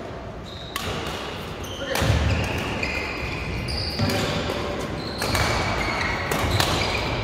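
Badminton rally: sharp racket strikes on the shuttlecock and shoes squeaking on the court mat, with players' voices in the background.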